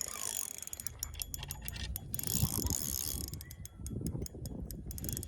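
Fishing reel clicking in fast runs of ticks as a hooked bass is played and reeled in, with low rumbling handling noise underneath.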